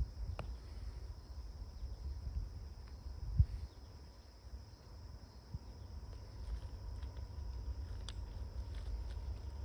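Low rumble and scattered knocks of a long CSX freight train rolling by, with a steady chorus of crickets over it. One sharper knock comes about three and a half seconds in.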